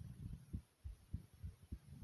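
Fast, pounding heartbeat: low, dull thumps in quick succession, a little under two beats a second.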